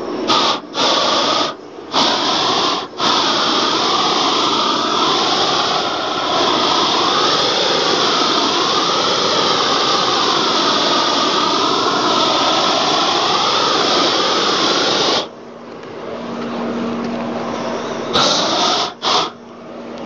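Gas torch fed from a cylinder, burning with a loud hissing rush and a wavering tone. It cuts out and comes back several times in the first few seconds and falls to a quieter hum about 15 s in, before two brief flare-ups near the end. The uploader suspects low gas pressure.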